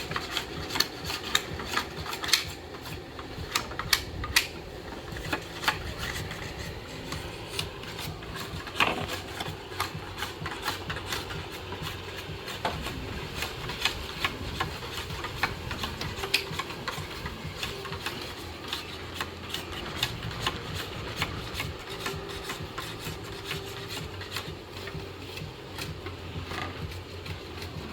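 Irregular scraping and rubbing with frequent sharp clicks and taps, over a steady low hum.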